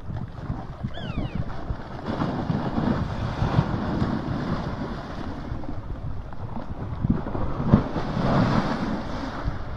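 Muddy floodwater rushing past an eroding riverbank, with wind buffeting the microphone. Chunks of the undercut earth bank collapse and splash into the river, with swells of noise a few seconds in and again near the end.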